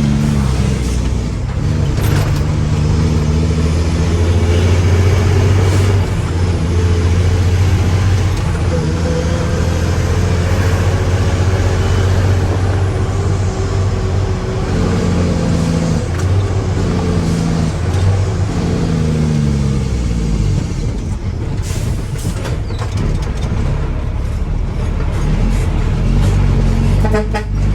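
Mack dump truck's diesel engine running steadily, its engine speed rising and falling several times in the second half.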